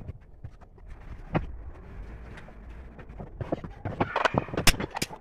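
Small wooden slat pieces knocking and clacking as they are handled on a wooden workbench: scattered light knocks, coming faster near the end.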